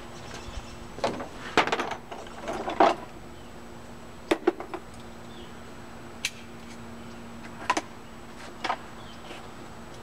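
Cold knife (pull knife) working through a windshield's urethane bead: bursts of scraping and creaking in the first few seconds, then single sharp clicks and knocks every second or two.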